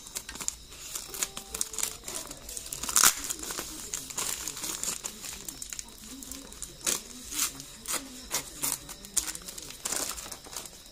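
Scissors cutting through a plastic courier wrap and packing tape on a cardboard box, with the plastic crinkling and tearing: a run of sharp snips and crackles, the loudest about three seconds in.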